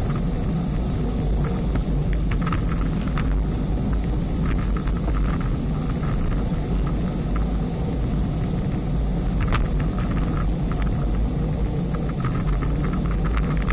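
Steady low rumble of wind buffeting and road noise on an action camera riding along on a bicycle at speed, with a few light clicks.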